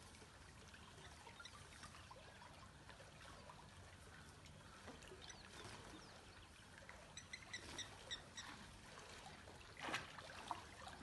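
Faint water trickling and lapping in a swimming pool in quiet outdoor ambience. A bird gives a short run of about six quick notes a little past the middle, and there is a brief splash near the end.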